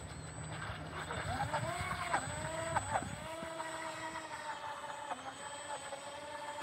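Small RC speedboat's electric motor whining. Its pitch jumps up and down in a few quick throttle blips, then holds fairly steady. The 3D-printed toroidal propeller is cavitating badly and not grabbing the water.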